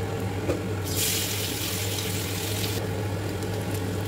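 Cubed raw potatoes going into hot oil in an iron kadai, a loud sizzling hiss that starts about a second in and cuts off sharply just under two seconds later.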